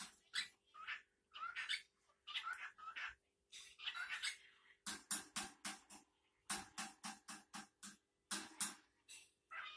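Male cockatiel singing its courtship song: phrases of warbled chirps and whistles, broken by short pauses, with runs of quick, sharp notes about five a second in the middle.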